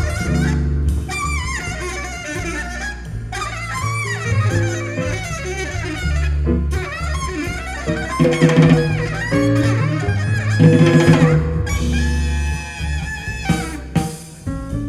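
Jazz music with a strong, deep bass line, played back through a Gryphon Audio Designs amplifier and loudspeakers.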